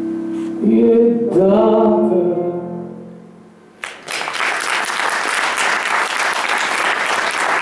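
Closing bars of a sung romance with backing music: a held chord and a short last phrase that fades away. About four seconds in there is a sharp click, then the audience breaks into applause.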